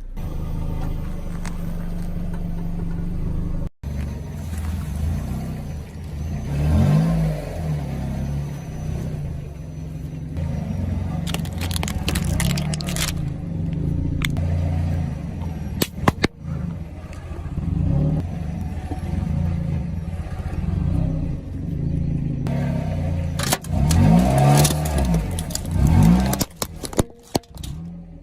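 Vehicle engine running steadily, revved up and down twice, with a few sharp cracks.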